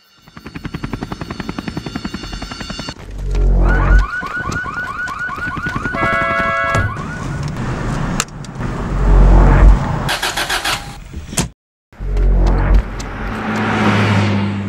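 Cinematic trailer sound design: deep booming hits a few seconds apart over pulsing, rumbling tones, with a rapidly repeating electronic chirp like a car alarm in the middle. It cuts out briefly near the end before another boom and a swelling rush.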